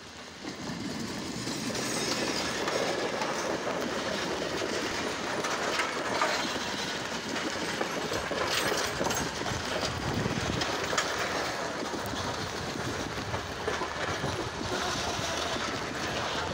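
Passenger train coaches rolling past close by, steel wheels clattering and clicking over the rails. The sound grows louder over the first two seconds, then holds steady with scattered sharp clicks.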